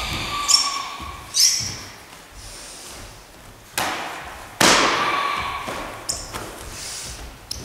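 Thuds and slaps of Kyokushin karate blows landing during a Sanchin kata test, as a black belt strikes a student to check her stance. There are several separate hits echoing in a large gym hall, the loudest about four and a half seconds in.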